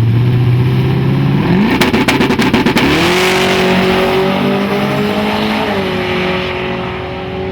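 Drag-race street car engine held at steady revs, then revving sharply up about one and a half seconds in as the car launches, with a rapid crackle. It runs on at high, steady revs, growing gradually fainter as the car pulls away down the track.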